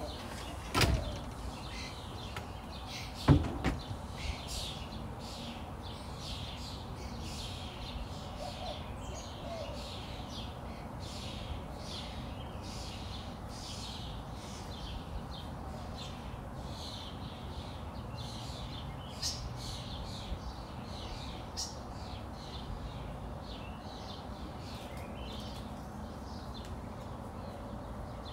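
Birds chirping over a steady low background rumble, with two sharp thumps about one and three seconds in, the second the loudest.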